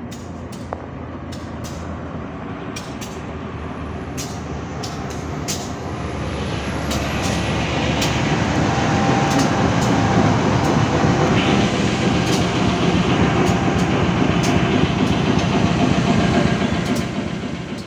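CC201 diesel-electric locomotive running and moving slowly past at close range, its engine noise growing steadily louder as it comes alongside and staying loud while it passes.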